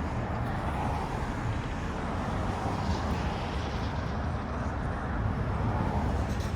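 Steady low rumbling vehicle noise, even throughout with no distinct events.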